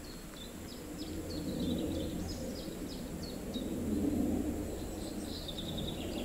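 Small birds singing in the open: short high chirps, each dropping in pitch, repeated over and over, over a low rumble that swells twice.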